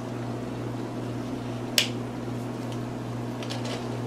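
A single sharp click about two seconds in, the on/off switch of the Spider Farmer SF2000 grow light's control box being flipped on, over a steady low hum.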